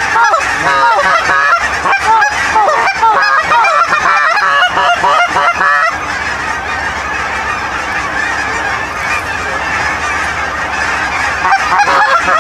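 Geese honking, many overlapping calls at once. About halfway through the separate honks give way to a steadier, quieter wash of sound, and distinct honks come back near the end.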